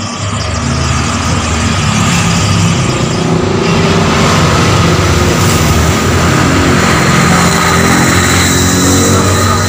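A motor vehicle engine running close by, growing louder over the first second and then holding steady.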